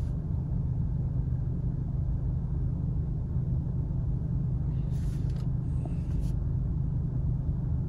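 A steady low hum and rumble heard inside a parked car, with two short rustles about five and six seconds in.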